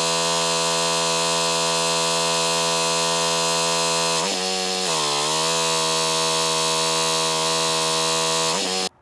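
Pressure washer running steadily at full power. Its pitch sags briefly about four seconds in and recovers a second later, as the load on the machine changes. It cuts off abruptly near the end.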